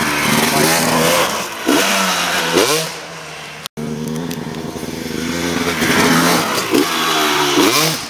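Dirt bike engine running close by and being revved, its pitch rising sharply about four times. The sound breaks off for an instant a little under halfway through.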